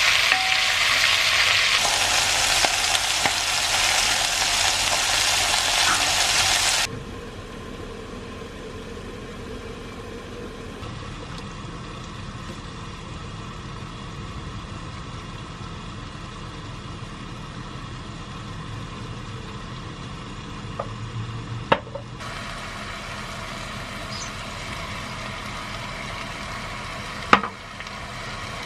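Chicken pieces with chopped onion and green pepper sizzling as they are stirred with a spatula in a pot, cutting off abruptly about seven seconds in. Then a much quieter steady hiss from a pot of spaghetti boiling as it is stirred, with two sharp utensil knocks against a pot in the second half.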